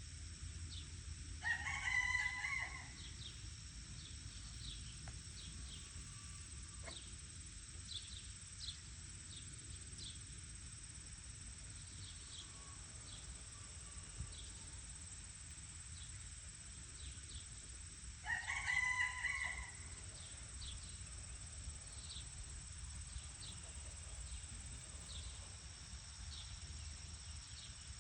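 A farm fowl gives a loud call twice, each about a second and a half long and some sixteen seconds apart, with short, faint, high chirps scattered in between.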